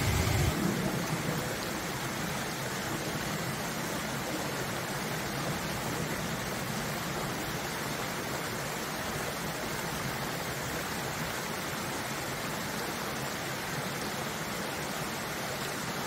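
Mountain stream running over rocks: a steady rushing of water.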